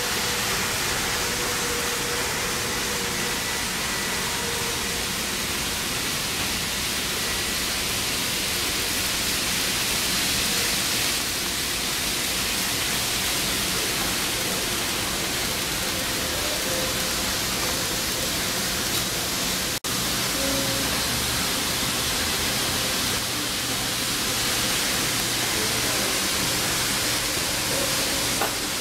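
A steady, even hiss with faint humming tones beneath it, broken for an instant about twenty seconds in.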